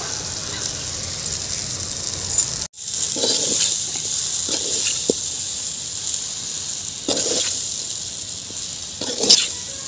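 Penne pasta and vegetable sauce sizzling in a steel pot while a ladle stirs it, with a scrape or clink of the ladle on the pot every second or two. The sound cuts out for an instant just before three seconds in.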